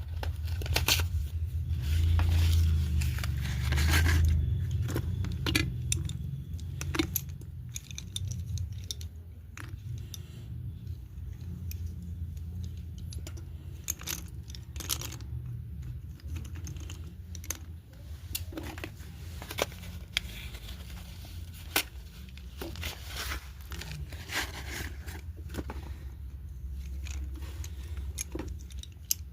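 Red slate pencils being handled, clicking and clinking against each other in irregular sharp ticks, with some rustling and scraping over a low rumble of handling noise.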